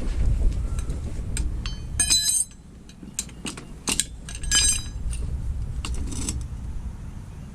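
Metal tools and parts clinking and clattering during hand work, with scattered sharp ticks. Two bursts of clinks ring with a metallic tone, about two seconds in and again midway. A steady low rumble runs underneath.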